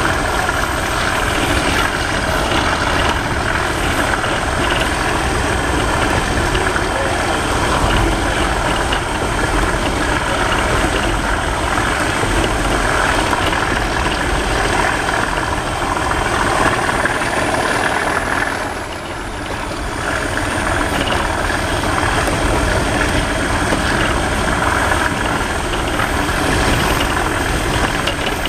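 Class 37 diesel-electric locomotive's English Electric V12 engine working hard under power, heard from inside a hauled coach together with the running of the train. A thin high whistle runs over it and rises briefly in pitch about 17 seconds in, and the sound dips for a moment around 19 seconds in.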